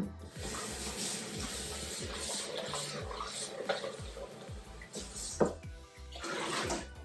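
Kitchen tap running into a sink, stopping about five seconds in and running again briefly near the end, with background music underneath.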